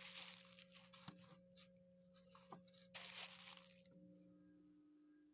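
Cloth rustling twice as a sleeve is handled and pulled into place, a longer rustle at the start and a shorter one about three seconds in, over a steady low hum.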